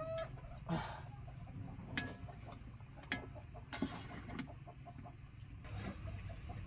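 Fried dough rounds bubbling and popping in hot oil in a metal wok, with four sharp knocks as a wooden spatula and a metal skimmer strike the pan while the pieces are lifted out. A short cluck-like call sounds right at the start.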